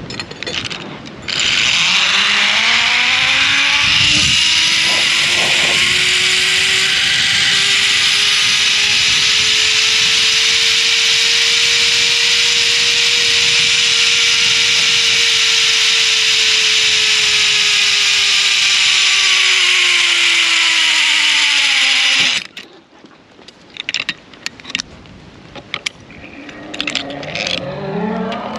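Petzl zipline pulley rolling down a long steel cable: a loud whirring whine that rises in pitch as it picks up speed, holds, then falls as it slows, and cuts off suddenly at arrival about 22 seconds in. Metal clicks and clinks of hooks and carabiners being handled follow.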